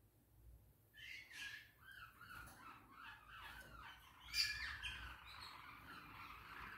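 Small caged songbirds chirping and singing, starting about a second in, with one loud, sharp note about four seconds in.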